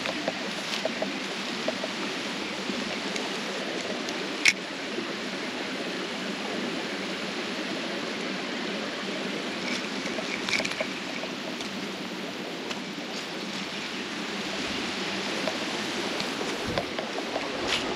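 Water running steadily through a small ditch: a continuous rushing hiss, with a single sharp click about four and a half seconds in.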